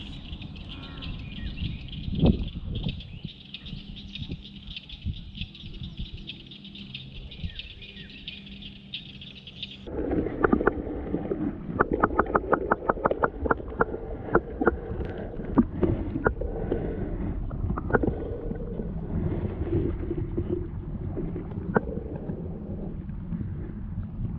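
Lake ambience with a steady high-pitched chorus and a single knock; about ten seconds in the microphone goes under water and everything turns muffled and low, with water sloshing and many sharp clicks, including a fast run of them.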